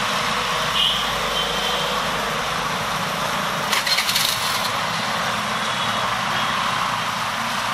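Street traffic at a busy roundabout: a steady wash of noise from passing cars, SUVs, scooters and motorbikes, with a brief clattering rattle about four seconds in.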